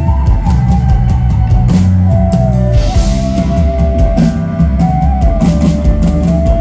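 A rock band playing an instrumental passage: drum kit and bass under a held lead melody whose notes bend and slide between pitches.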